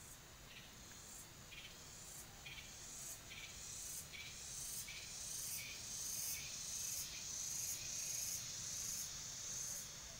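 Insects calling outdoors: a shrill, high buzzing song that pulses a little under once a second and grows louder as it goes.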